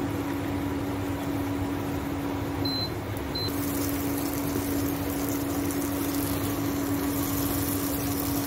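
Eggs cooking in a kadhai of onion-tomato masala, a hiss with a spatula scrambling them, over a steady low hum. Two short high beeps come about three seconds in, and the hiss grows brighter after them.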